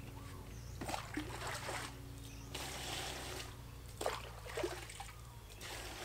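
Water splashing and trickling as a plastic bowl is dipped into and lifted from a concrete water tank, with a few light knocks of the bowl.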